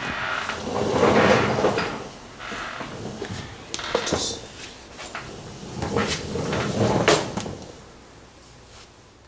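Handling noises: scraping and clunks of things being moved, with a sharp knock about four seconds in and another near seven seconds, dying away toward the end.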